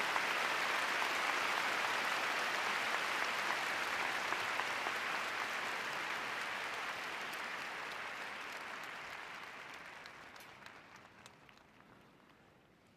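Large audience applauding, the applause fading steadily and dying out after about ten seconds, leaving a few scattered claps.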